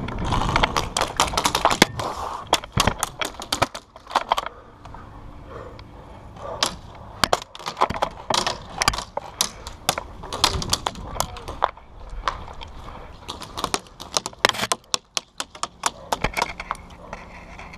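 Airsoft gunfire: rapid strings of sharp cracks and clicks in clusters, with short quieter gaps between the clusters.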